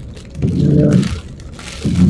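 Car windshield wipers sweeping across wet glass, each pass giving a low groaning rub about half a second long, repeating about every one and a half seconds. One pass is heard about half a second in, and the next begins near the end.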